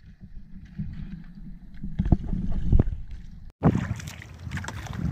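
Wind on the microphone and sea water moving around a small outrigger fishing boat, a steady low rumble, with a few sharp knocks about two to three seconds in. The sound drops out for an instant a little after three and a half seconds and comes back louder.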